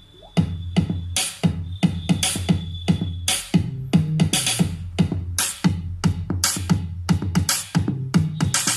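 Electronic music with a drum-machine beat and strong bass, played through the iBall Musi Poison BTH9 portable Bluetooth speaker's small 4 cm drivers as a sound test. The music comes in loud about a third of a second in. The reviewer finds the speaker's bass not clear.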